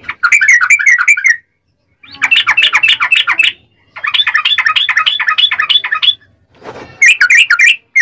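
Yellow-vented bulbul singing its rolling, chattering song: four quick bursts of rapid bubbly notes separated by short pauses, the third burst the longest.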